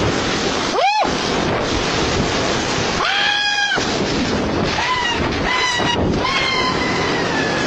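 A loud, steady rushing noise with several high-pitched cries over it: one rising and falling about a second in, a longer held one around three seconds in, then a few shorter ones near the end.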